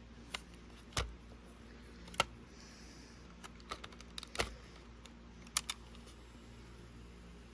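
Scattered sharp plastic clicks and knocks, about eight at uneven intervals, as two batteries are fitted into a Sony WM-FX28 Radio Walkman.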